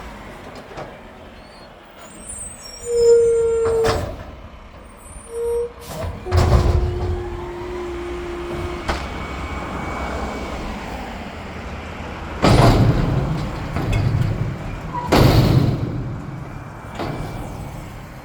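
Mack garbage truck with a McNeilus front-loader body running, its air brakes hissing in three loud bursts. A few short steady tones sound in the first half, the longest lasting a couple of seconds.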